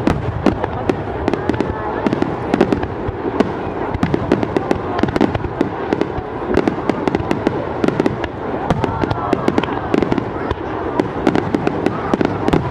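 Aerial fireworks going off in a dense barrage: sharp bangs and crackles, many strikes a second, with no let-up.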